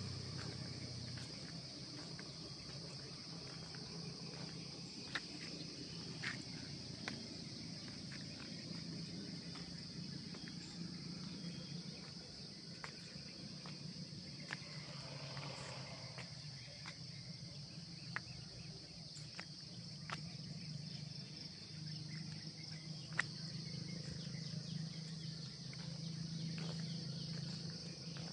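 Steady, high-pitched chorus of insects droning without a break, over a low hum, with scattered faint ticks.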